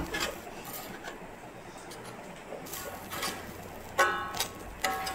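Metal spatula clinking and scraping against a steel bowl and a large iron frying pan. A few sharp clinks, then two louder ringing scrapes, one about four seconds in and one near the end.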